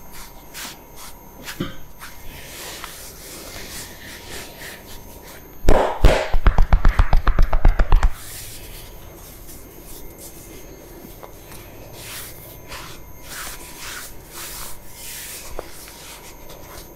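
Hands rubbing and tapping on a man's head and scalp during a barber's head massage. About six seconds in comes a loud run of rapid slapping strokes, about six a second, lasting a little over two seconds.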